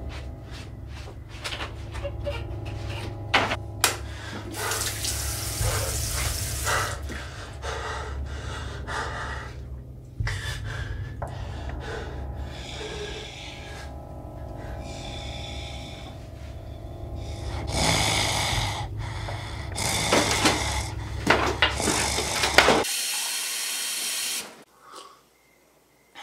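Water from a tap running into a bathroom sink and splashing, in several rushing stretches with clicks, over a steady low hum that stops a few seconds before the end.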